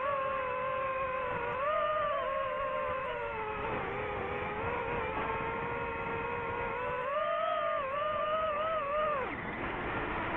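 DJI FPV drone's electric motors and propellers whining, the pitch rising and falling as the throttle changes. The pitch sinks about four seconds in, climbs again with a wavering whine around seven seconds, and drops sharply just after nine seconds.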